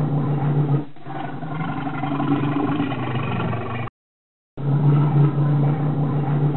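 Bear growling: a loud, low, continuous growl that dips briefly about a second in, stops for under a second at about four seconds, then starts again.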